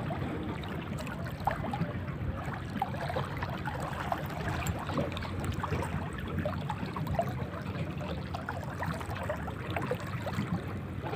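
Seawater lapping and trickling: an even wash with many small irregular splashes.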